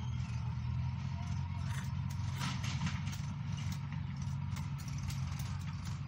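Diesel engine of a JCB backhoe loader running steadily, a low even drone that holds throughout.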